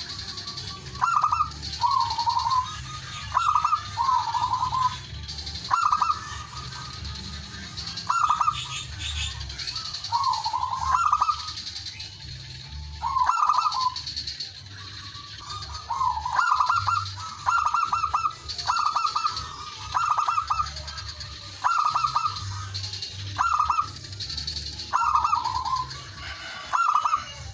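Male zebra dove (perkutut) cooing: short phrases of rapid cooing notes, one every one to two seconds, a male's call to rivals. A low steady hum runs underneath.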